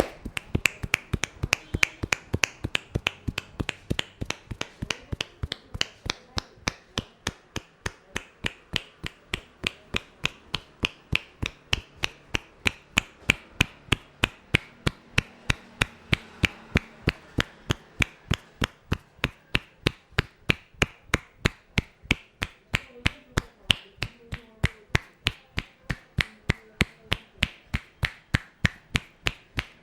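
Rhythmic percussive strikes of a barber's hands on the head during an Indian head massage: a quick, even run of sharp claps, about three or four a second.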